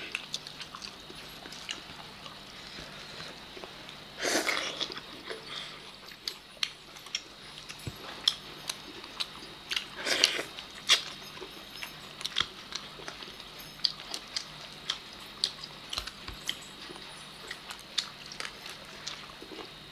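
Close eating sounds from people eating chicken leg pieces and rice by hand: many short, irregular smacks and clicks of chewing and biting, with two longer, louder bursts about four and ten seconds in.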